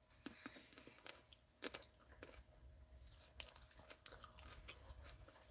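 Near silence: room tone with faint, scattered small clicks and crackles.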